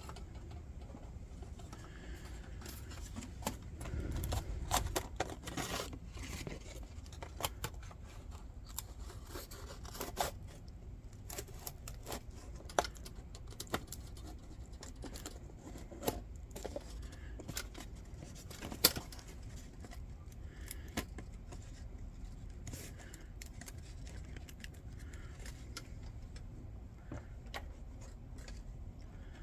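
Scissors cutting a thin, flaky sheet of mica: scattered sharp snips and clicks, with a louder rustling stretch about four seconds in.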